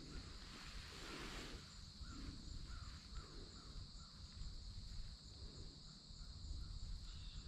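Faint outdoor ambience: a steady high hum with faint short chirps repeating about twice a second, over a low rumble.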